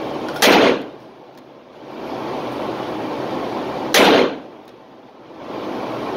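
Two revolver shots about three and a half seconds apart from a Ruger GP100 fired single action with .38 Special wadcutters, echoing in an indoor range lane. A steady hiss of background noise fills the gaps between the shots.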